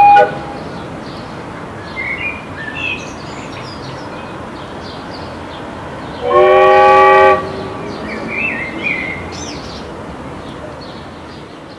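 Steam organ (calliope) on a steam boat sounding one loud chord of several whistle pipes together for about a second, about six seconds in. A held note cuts off just at the start.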